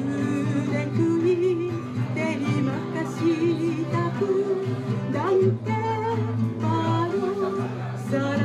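A woman singing with vibrato through a microphone, accompanying herself on an acoustic guitar.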